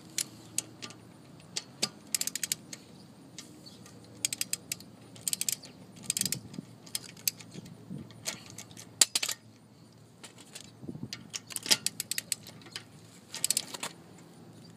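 Hand ratchet, likely a torque wrench, clicking in short bursts of rapid ticks, with light metal clinks between, as the wheel bolts are tightened by hand.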